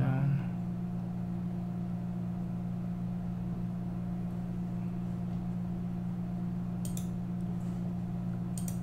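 Steady low background hum made of a few constant tones, with a few faint clicks near the end.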